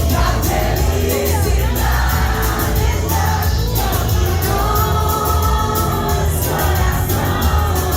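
Tecnomelody band music with a sung vocal melody over a heavy bass line and a steady, fast high-hat beat.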